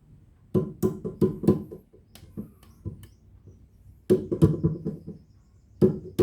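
Repaired portable Bluetooth speaker playing music: a run of short, plucked-sounding notes in little clusters with brief gaps between them. The speaker is working again after the repair.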